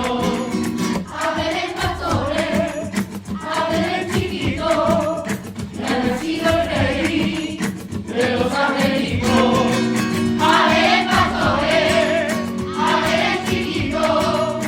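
Choir singing a Spanish Christmas carol (villancico) in sustained phrases over instrumental accompaniment.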